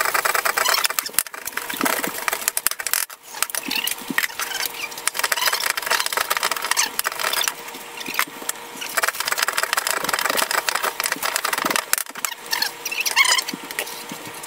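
A cleaver chopping vegetables on a wooden cutting board, a quick irregular run of knocks, over a steady crackling hiss. The chopping stops about halfway through, and the crackling carries on.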